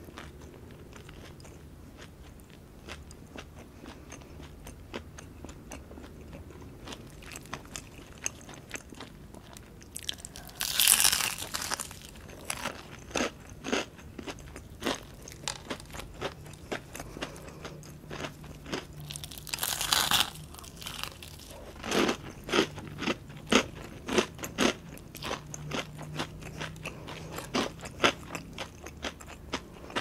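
Close-miked eating sounds of crispy fried chicken: chewing, with crunchy bites into the fried coating. Two louder crunches come about a third of the way in and again about two-thirds of the way in, followed by a quick run of sharp crackling bites.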